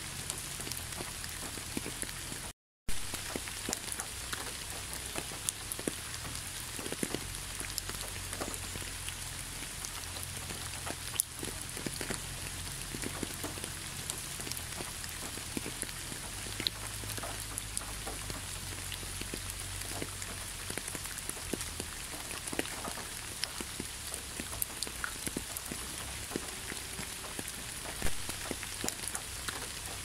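Steady rain falling, with many sharp drop ticks over an even hiss. The sound cuts out completely for a moment about three seconds in.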